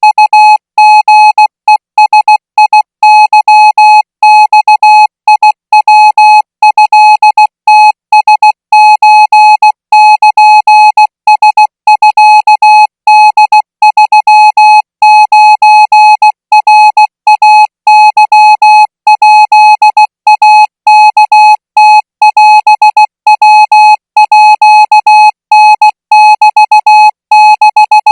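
Morse code sent as an on-off keyed single-pitch tone: a rapid string of short and long beeps with brief gaps between characters. It is a Thai-language radio signal keyed at 20 words per minute.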